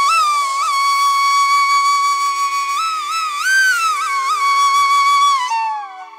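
Background music: a flute-like melody holding one long note with small ornamental slides, over a steady low drone. Near the end the note slides down and the music drops in level.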